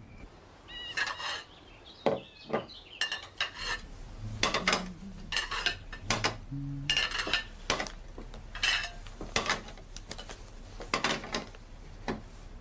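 Crockery and cutlery clinking and clattering irregularly as dishes are handled at a kitchen counter, with a few dull knocks among the clinks.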